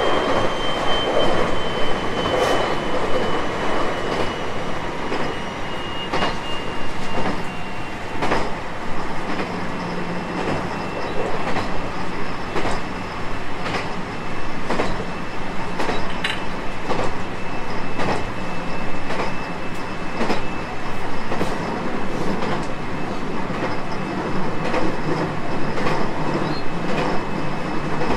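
JR 223 series 5000 electric multiple unit running, heard inside the passenger car: a steady rumble of wheels on rail with irregular rail-joint clicks. A high whine from its Mitsubishi IGBT VVVF inverter drive slowly falls in pitch over the first several seconds.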